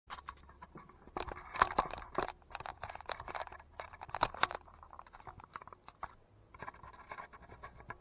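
Handling noise from an action camera being set up by hand: close scraping, rubbing and clicking of fingers and mount against the camera body. It comes in a long spell and then a shorter one near the end.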